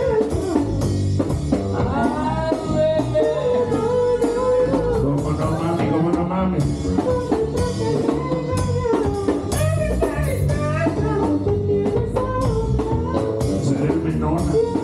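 Live band music: a singer over accordion and drums.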